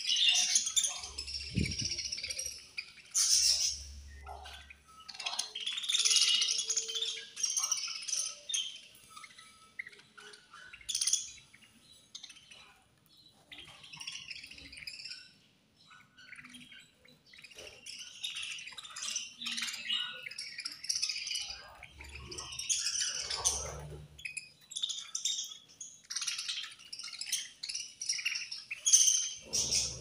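A flock of budgerigars chirping and chattering in busy bursts, with a quieter spell around the middle.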